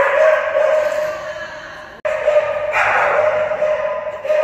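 Dog barking over and over, a high-pitched, excited run of barks about two a second with a short break in the middle.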